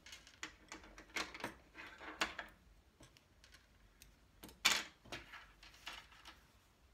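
A cloth face mask being handled: fabric rustling with scattered small clicks and taps, and one sharper, louder click about two-thirds of the way through.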